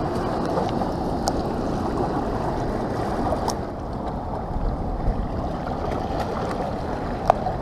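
Steady rush of fast river current pouring past the rocks below a dam spillway, with a few light clicks, the sharpest near the end.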